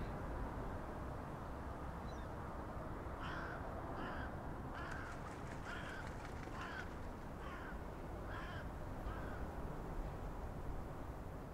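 A crow cawing about nine times in a steady series, starting about three seconds in and stopping near the end, over a steady rush of wind.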